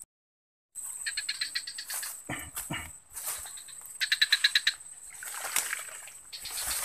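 A frog giving two short, rapid pulsed trills a few seconds apart, over a steady high-pitched whine, with a few low knocks between the calls.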